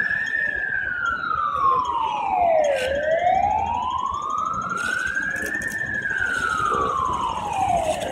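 Emergency siren wailing slowly, its pitch falling, rising and falling again in cycles of about five seconds, with a fainter second siren sweeping at a higher pitch alongside.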